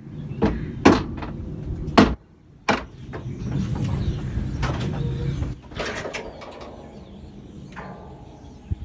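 Sharp metallic knocks, a hammer tapping the dump truck's hood latch catch to nudge it into alignment: three strikes in the first three seconds. A lower rumbling scrape follows for a couple of seconds, then a few light clicks.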